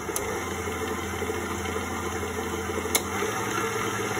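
Electric stand mixer running at high speed, its wire whisk beating chocolate sponge batter in a metal bowl: a steady motor hum, with two sharp clicks, one just after the start and one about three seconds in.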